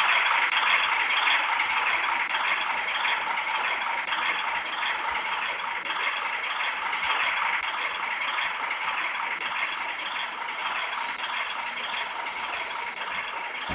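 Freight cars of a cement train rolling past with a steady clatter and rattle of wheels on rail, slowly fading as the train goes by.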